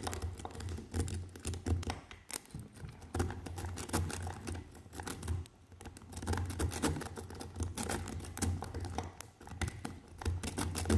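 Multi-pick raking the pins of a Pfaffenhain padlock: rapid, irregular clicking and scraping of the pick over the spool pins as it works the lock toward a false set. A low hum runs underneath.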